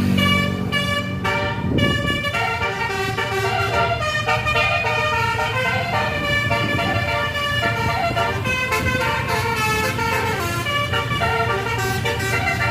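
Indonesian tour bus's 'basuri' telolet multi-tone air horn playing a melody in quick stepped notes without a break, over the low hum of the bus engine.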